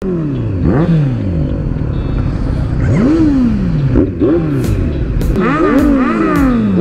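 Motorcycle engines revved in short throttle blips, each note climbing quickly then falling away, with two or more bikes overlapping near the end. Music with a steady beat comes in about halfway.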